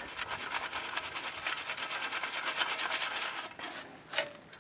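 Trapper's dirt sifter being shaken to cover a bedded foothold trap: soil rasping through the wire screen in a fast, scratchy shuffle that dies away about three and a half seconds in, followed by a brief rustle near the end as the dirt is smoothed by hand.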